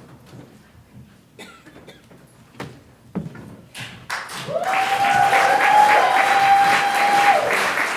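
Audience applause and cheering break out about four seconds in, with one long, high held cheer over the clapping for about three seconds. Before that there are only scattered knocks and shuffling.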